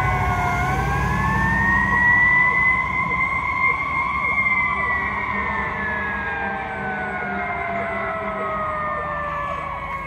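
Wail siren of a fire truck and ambulance running on an emergency call, the pitch sweeping slowly down, up to a peak about four seconds in, then down again. The siren fades as the vehicles pull away.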